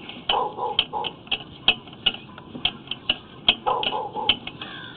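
Sewer inspection camera's push cable being pulled back through the line, clicking steadily about three to four times a second, with a couple of brief rustling handling noises.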